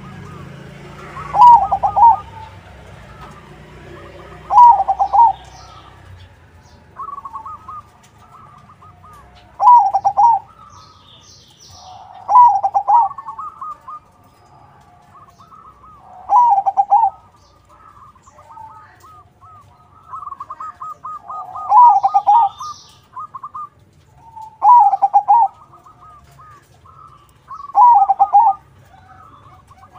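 Zebra dove (perkutut), a crossbred bird, singing: its loud rapid cooing phrase repeats about eight times, every three seconds or so, with softer quick trilling coos in between. Faint high chirps of small birds sound now and then.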